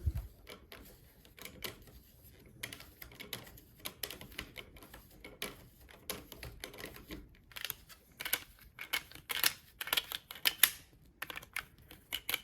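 Small, irregular clicks and scrapes of hard parts as a small tool tightens the blade-retaining collar down onto a toy lightsaber hilt. The clicking grows busier about two thirds of the way in.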